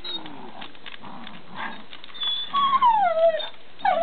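A dog whining: high whimpers that slide down in pitch, with one long falling whine about two and a half seconds in.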